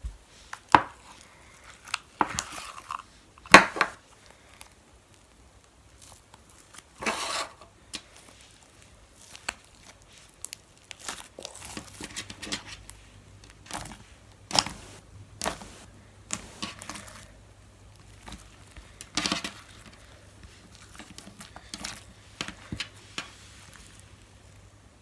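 Homemade slime being handled out of a plastic tub, then squished and stretched by hand, giving irregular clicks and crackles that are loudest in the first few seconds.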